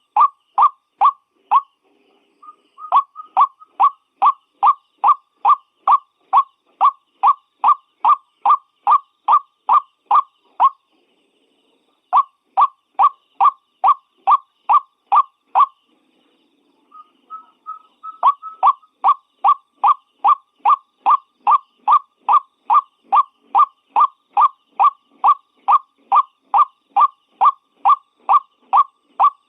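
White-breasted waterhen calling: a long run of short, evenly repeated notes at about three a second. The run breaks off three times, and softer, ragged calls lead back into it each time the series resumes after the first and last breaks.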